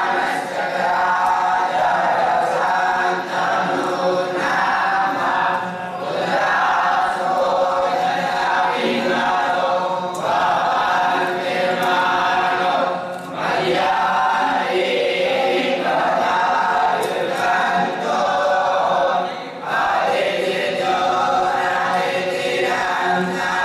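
A group of voices chanting mantras together in a steady, continuous recitation, with a few brief pauses for breath.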